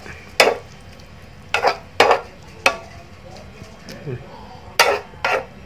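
Spatula stirring and scraping a stir-fry of baby corn, mushrooms and meat in a nonstick wok: six sharp scrapes and knocks, two of them close together near the end, over a low sizzle.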